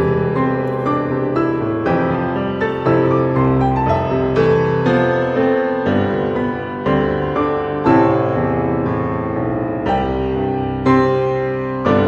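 Background piano music, a slow run of notes struck about every half second.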